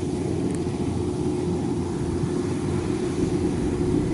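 Kubota DC-93 combine harvester running steadily as it cuts ripe rice, engine and threshing machinery making a constant hum with one steady tone.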